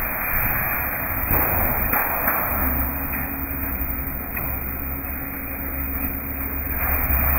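Corrugated roofing sheet roll forming machine running: a steady motor hum with the rattle of steel sheet passing through the forming rollers, and a few short knocks.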